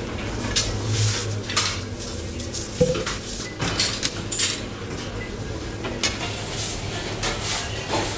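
Kitchen clatter of utensils and pans being handled: irregular knocks and clinks, the sharpest a metallic clink about three seconds in, over a steady machine hum.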